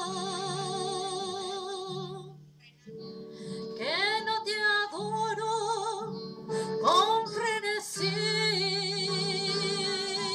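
A woman singing into a microphone, amplified through a PA, holding long notes with wide vibrato and swooping up into notes, over a low instrumental accompaniment. The singing breaks off briefly about two and a half seconds in.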